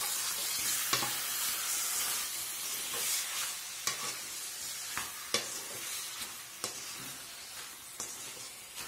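Raw chicken pieces and sliced onion sizzling in hot oil in a metal kadai, frying in the first minutes of browning. A slotted spatula scrapes and knocks against the pan every second or so as the pieces are stirred.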